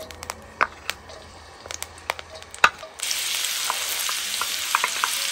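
Wooden spatula clicking and knocking minced ginger and shallots into a wok of hot oil. About three seconds in, loud steady sizzling starts abruptly as the aromatics fry in the oil.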